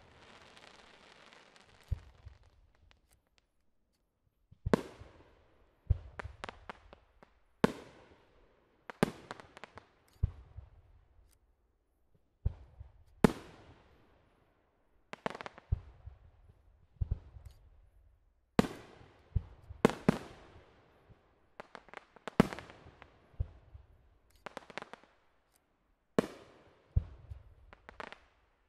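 Aerial fireworks display: firework shells bursting high overhead in a steady series of sharp bangs, roughly one every one to two seconds, each followed by echoing tails and smaller pops. There is a short lull a few seconds in.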